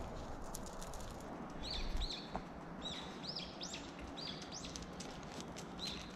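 A small bird calling repeatedly: about eight short, high chirps that each rise and fall, over faint outdoor background noise, with a brief low rumble about two seconds in.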